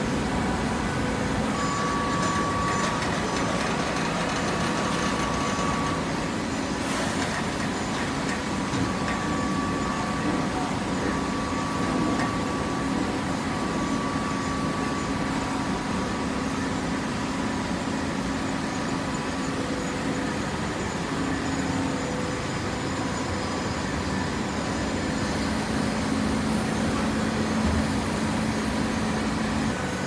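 TCM horizontal hydraulic baler running: a steady machine hum with a fainter, higher steady whine over it.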